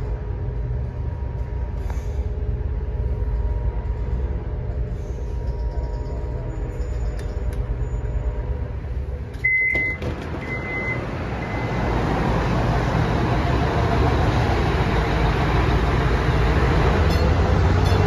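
Stadler GTW diesel railcar running: a steady low rumble with a faint hum. About halfway there are three short high beeps, then a louder rushing rumble builds toward the end.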